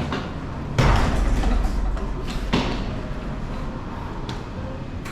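A door shutting with a heavy thud about a second in, followed by a brief low rumble and a couple of lighter knocks and clicks.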